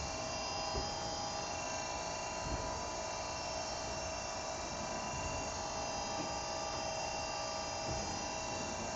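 CNC machine running with a steady electrical hum and several steady whining tones, with no cutting sounds, as in a program dry run.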